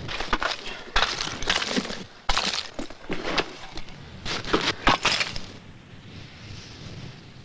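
Picks hacking into glacier ice: a string of irregular chopping strikes with cracking and breaking ice, growing sparse and quieter over the last two seconds.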